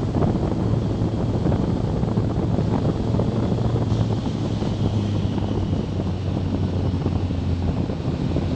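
Wind buffeting the camera microphone at road speed over the steady low hum of a BMW K1300S's inline-four engine.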